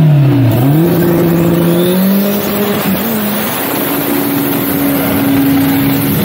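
Chevrolet Chevette drag car's engine at full throttle on a drag-strip pass. Its pitch climbs early on, holds, then steps higher about three seconds in and holds again.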